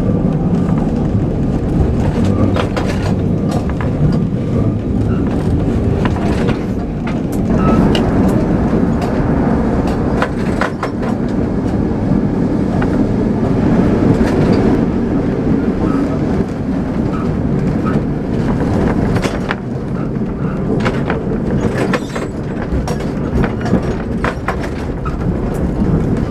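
Lisbon tram 28 heard on board while running along its track: a steady low rumble of wheels and motors with frequent clicks and knocks as the wheels cross rail joints and points.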